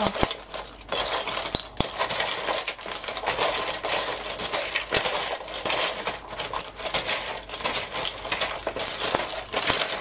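Hands rummaging through a container of small hard craft items while searching for clothes pegs: a continuous clattering and clinking of the pieces knocking against each other and the container.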